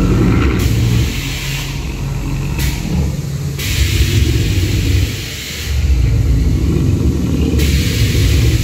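Animatronic Tyrannosaurus rex roar effects: a loud, deep rumbling growl, with stretches of hiss that cut in and out every few seconds.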